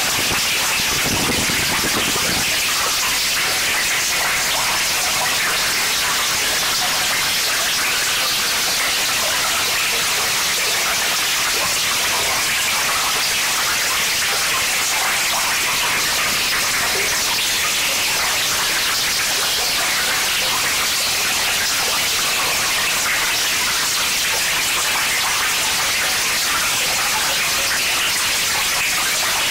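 Harsh noise wall: a dense, unchanging wash of electronic static and hiss at a constant loud level, heaviest in the treble, with a brief deeper swell about a second in.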